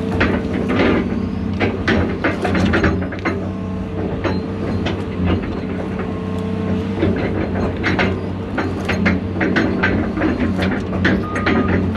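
Diesel engine of a John Deere 250G LCR excavator running steadily under load, with frequent irregular cracks and snaps of brush and branches being broken and crushed, and some clanking.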